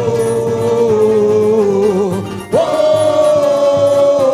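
Samba-enredo singer holding long sung 'oh' notes over the samba school's musical accompaniment: one held note, then a break about two and a half seconds in and a second, higher held note.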